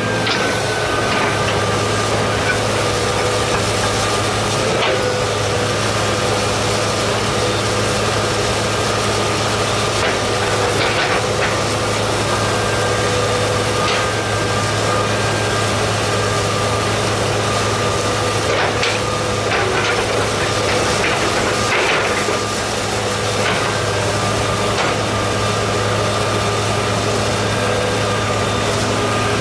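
John Deere 200C LC excavator's diesel engine running steadily under work, with a higher whine that comes and goes as the boom and bucket move. Scattered short clunks of the bucket and dirt sound through it, several of them close together around two-thirds of the way in.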